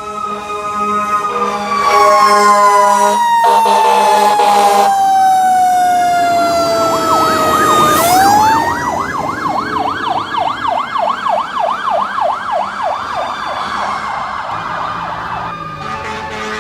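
Fire truck air horns blasting a steady chord for about the first five seconds while a siren winds slowly down in pitch. About eight seconds in, after a sharp click, a siren rises again and goes into a fast up-and-down yelp, about three sweeps a second, for some seven seconds. Air horns sound again near the end.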